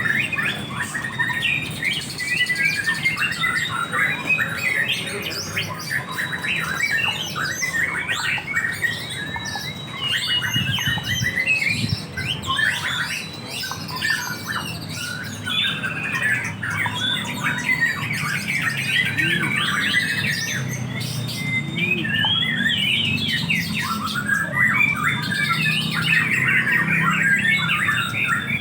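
Caged songbirds singing and squawking together in a dense, continuous stream of rapid chirps and trills, over a low background rumble.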